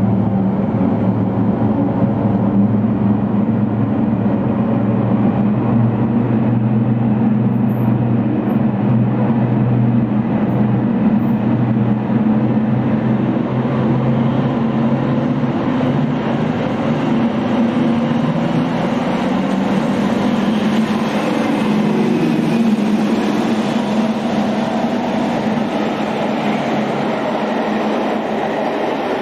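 A train running, with a steady low engine drone. From about halfway on, a higher rattling noise grows as the drone fades.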